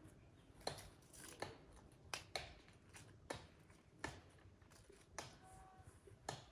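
A series of sharp, dry clicks or snaps, roughly one a second, over a quiet background, with a few faint short peeps near the end.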